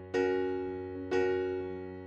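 Background music: electric-piano-style keyboard chords, a new chord struck about once a second and fading away.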